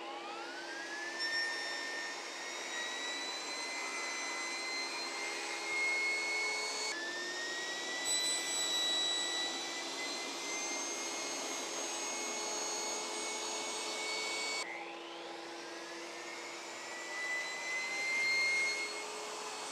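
Table saw spinning up with a rising whine, then running with a steady high-pitched motor whine while cutting the tongue of a bridle joint with the board held upright in a jig. The sound breaks off and starts again twice.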